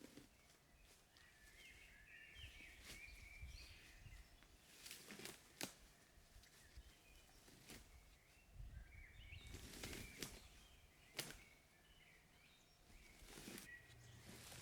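Faint forest sounds: scattered light snaps and rustles of wood being handled, with faint high bird calls.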